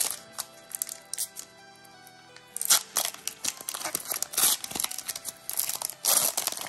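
Foil Pokémon booster pack wrapper crinkling and tearing open in a run of rustling bursts, the loudest from about two and a half seconds in, over soft background music.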